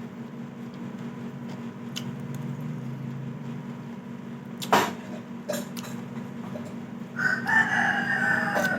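A rooster crowing once near the end, a single call of about a second and a half. A sharp click about halfway through, over a steady low hum.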